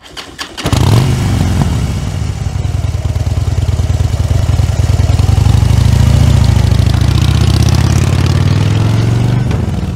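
Motorcycle engine starting: a few quick clicks, then it catches about a second in and runs steadily at idle.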